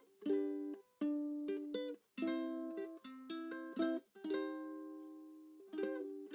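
Background music of plucked-string chords, each struck sharply and ringing out before the next, roughly one a second with a longer held chord in the middle.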